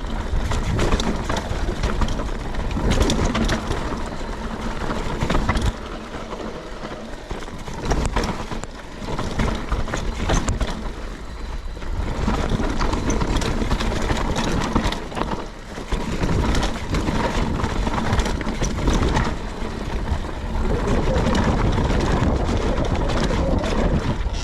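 Mountain bike riding downhill over rough, rocky trail: tyres rolling and skipping over rock and dirt, with constant rattling and knocking from the bike over bumps, rising and easing in loudness as the terrain changes.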